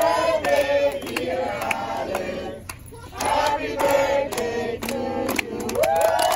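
A group of people chanting together in rhythm, with claps, breaking off briefly about halfway; near the end the voices swell into one long held cheer.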